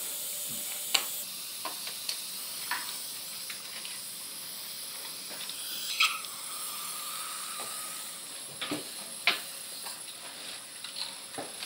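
Steady hiss of dental surgical suction, with light clicks of metal instruments now and then. About halfway through, a thin held tone lasts roughly two seconds.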